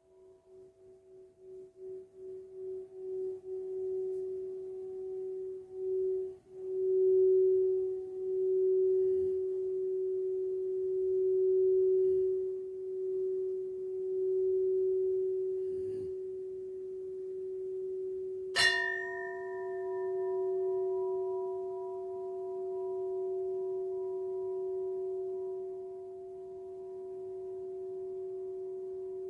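Crystal singing bowl sounding one steady, pure tone. It swells in with a fast wavering that slows as it settles, then holds. A little past halfway it is struck once with a sharp tap, adding a brighter ring of overtones above the hum, which rings on.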